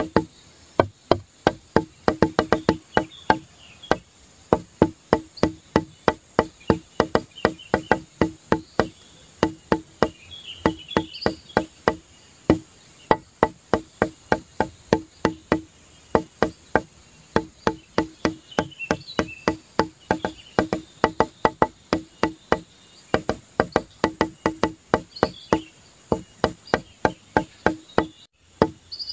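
Background music with a steady, fast clicking beat like a wood block and a repeating low note, with short high chirps over it.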